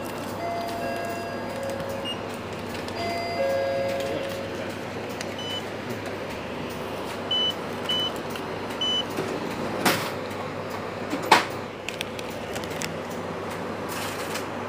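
Shop checkout in progress: four short, high electronic beeps from the barcode scanner and till, coming a second or two apart, over a steady hum of store background noise. Two sharp knocks follow near the end, the second one the loudest sound here.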